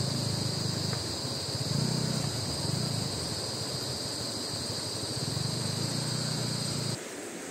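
Motorcycle engine running at low revs, swelling and easing a few times, with a steady high-pitched insect drone and rushing river water behind it. Engine and insects stop abruptly near the end.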